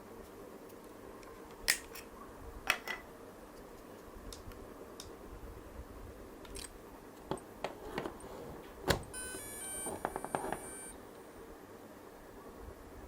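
Several sharp plastic clicks as a DJI Mini 2 drone and its battery are handled and fitted. About nine seconds in, the drone powers on with a short electronic tune of stepped beeps lasting about two seconds, alongside a brief rapid buzzing.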